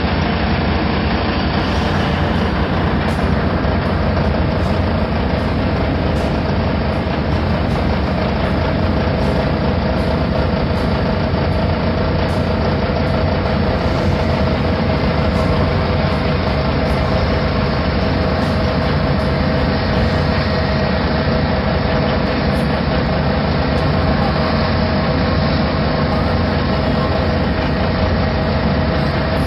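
A heavy engine running steadily at a constant speed, with a steady hum that does not change.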